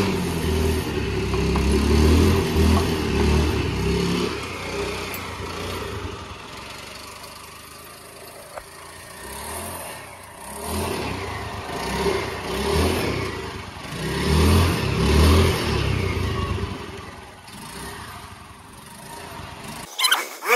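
A motor vehicle engine running and revving, its rumble rising and falling, loudest in the first few seconds and again from about ten to sixteen seconds in.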